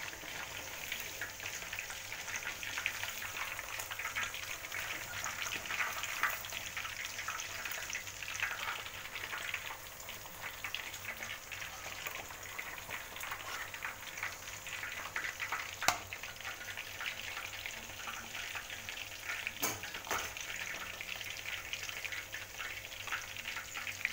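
Spice-braised chicken pieces deep-frying in hot oil in an aluminium wok: a steady, dense crackling sizzle, with a spatula stirring. Two sharp clicks stand out, about four seconds apart in the second half.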